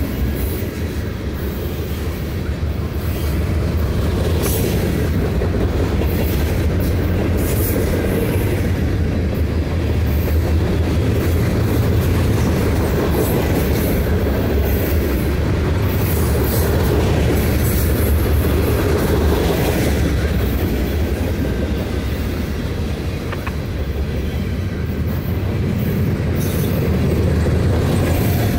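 Freight cars of a long manifest train, tank cars and covered hoppers, rolling past at close range: a steady low rumble of steel wheels on rail, with brief high-pitched sounds from the wheels now and then.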